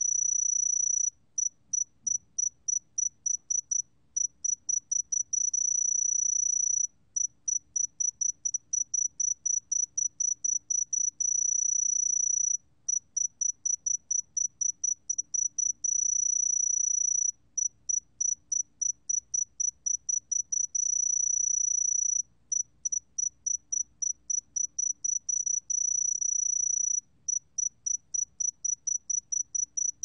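Song of the 새금빛종다리 (sae-geumbit-jongdari), a small golden bell cricket, recorded at 20 °C. A single high, pure tone comes in quick pulses, about four or five a second, that run together into an unbroken trill of about a second and a half. The cycle repeats roughly every five seconds.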